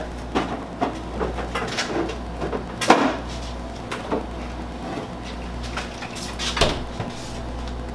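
Scattered knocks and clicks of containers and kitchen items handled on a counter, the loudest about three seconds in, over the low steady hum of a microwave oven running while it melts butter.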